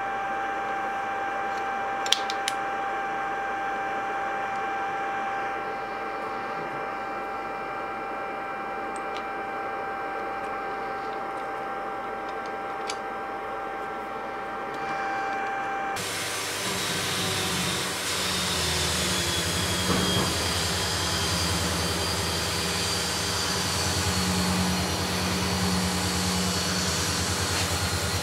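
Steady machine hum with a few light clicks. About halfway through it changes abruptly to a louder electric motor running steadily, with a rushing hiss like a blower or vacuum.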